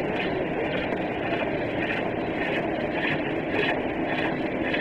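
Green wood being cut on a foot-powered pole lathe: a hook tool scrapes the spinning bowl blank in short repeated strokes, about two a second, over a steady mechanical drone.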